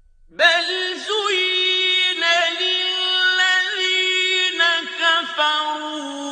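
Male Quran reciter's voice in mujawwad tajweed recitation. It comes in about half a second in and carries one long melodic phrase of held notes with ornamented turns, dropping to a lower note near the end.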